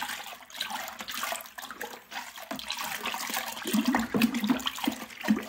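Wort sloshing and splashing as it is stirred hard with a perforated brewing paddle in a fermenter, choppy and irregular. The stirring whips air into the wort after the yeast is pitched, raising a head of foam.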